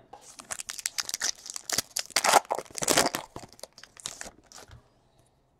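Foil wrapper of a trading card pack being torn open and crinkled: a run of quick rips and crackles that stops near the end.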